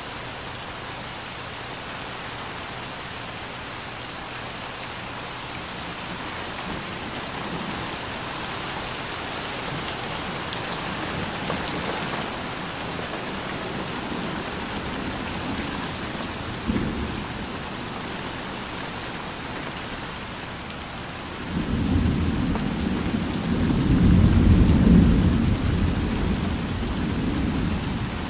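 Steady rain falling on a swimming pool and wet concrete deck, slowly getting heavier. About twenty-one seconds in, a long low rumble of thunder swells, peaks a few seconds later and dies away.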